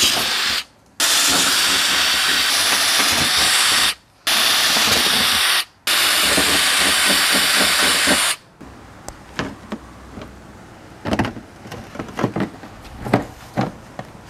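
Power drill running an 11/32-inch bit through the fender's sheet metal, in three runs broken by short silent gaps. About eight seconds in the drilling stops, and light knocks and taps follow as the snorkel body is fitted against the fender.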